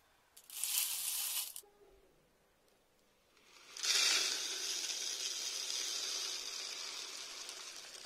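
Dry granular feed pouring: a brief rush of grains about half a second in, then, from about four seconds, a steady hiss of feed running through an upturned plastic bottle and spilling out into the feeder's plastic bowl, slowly easing off.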